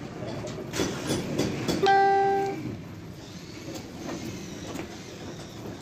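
A single short horn blast: one steady tone held for under a second, about two seconds in, over low workshop background noise.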